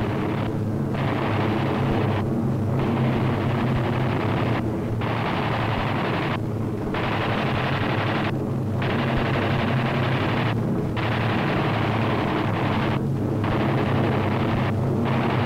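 Long bursts of fighter machine-gun fire, broken by short pauses about every two seconds, over a steady low drone.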